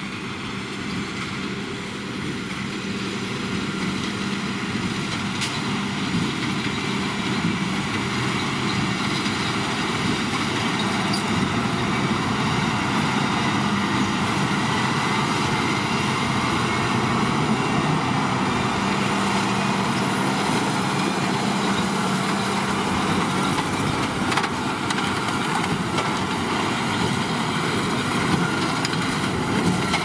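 Claas Axion 830 tractor pulling a Krone Big Pack 1290 HD large square baler through winter barley straw: engine and baler running steadily, growing louder over the first ten seconds or so, then holding.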